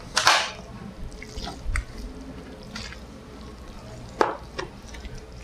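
A metal spoon scraping wet cornbread dressing out of a glass bowl into a disposable aluminium foil pan: a few soft wet plops and squishes, with a sharp click of the spoon on the bowl about four seconds in.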